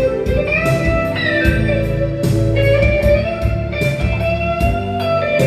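Music: an electric guitar lead plays a slow melody of long held notes with bends, over a band accompaniment of bass and drums.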